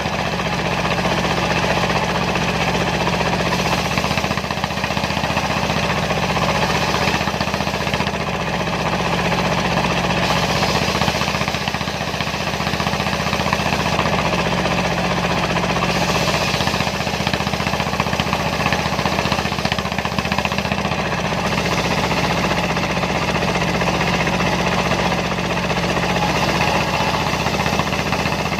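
Dongfeng single-cylinder diesel engine running steadily, driving a homemade circular sawmill.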